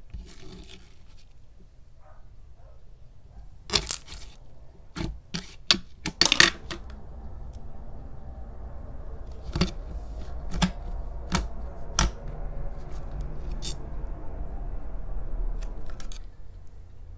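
Thick, glossy homemade slime being handled, giving scattered sharp clicks and pops, several in a cluster about six seconds in.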